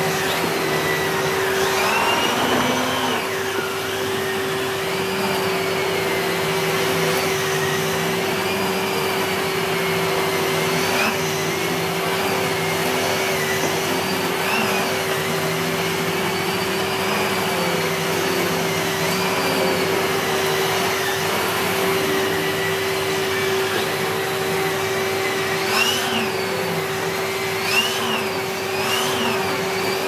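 Numatic Henry HVR200A 1200 W cylinder vacuum cleaner running on high with an AiroBrush turbo brush head working over carpet. It makes a steady motor whine, with a higher whine that rises and falls as the head is pushed back and forth.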